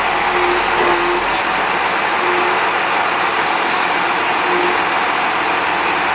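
Scania G490 timber truck's 13-litre six-cylinder diesel running to drive the hydraulics of its loader crane as the crane slews and swings its grapple. A steady, even rush of noise with short faint whines coming and going.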